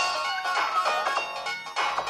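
Samsung SGH-C100 mobile phone playing an electronic ringtone melody of quick, bright notes, with a brief break near the end.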